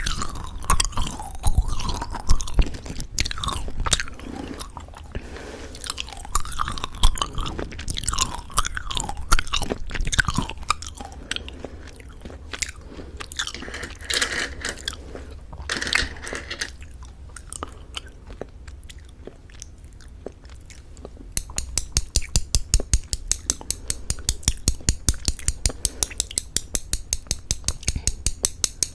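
Close-miked mouth chewing plum-flavoured Happy Jelly chewy candy with a crunchy sugar-coated shell: wet smacking and crunching at first, quieter for a while, then a fast, even run of crisp chewing clicks at about five a second from about two-thirds of the way through.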